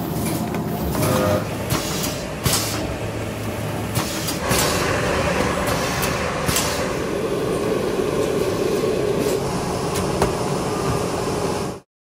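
Factory packaging-line machinery running with a steady noise, dotted with clicks and knocks of boxes being handled. About four and a half seconds in it grows louder and steadier as a shrink-wrapping machine's conveyor carries film-wrapped cartons through, then the sound cuts off abruptly near the end.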